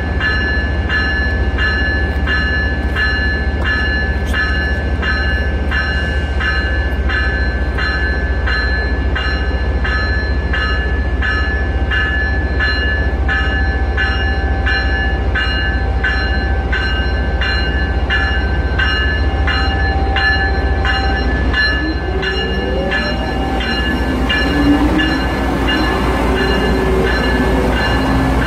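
Amtrak Siemens ACS-64 electric locomotive with its bell ringing steadily, about one and a half strokes a second, over a steady low hum. From about 22 seconds in, a rising whine joins as the locomotive starts to move off.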